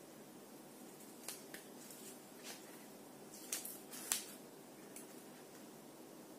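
Scissors snipping through glitter-paper-covered cardboard: a few short, sharp cuts spread out, the two loudest a little past the middle.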